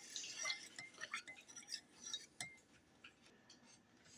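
Spoon stirring honey into a tea mixture, clinking lightly against the side of the container with scattered soft clicks and short ringing pings that die away after about two and a half seconds.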